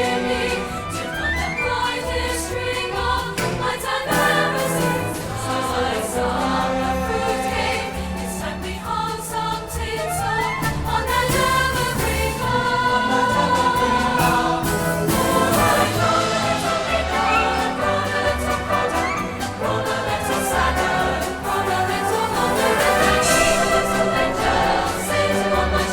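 Choir singing with symphony orchestra accompaniment, a holiday piece with a steady low beat underneath.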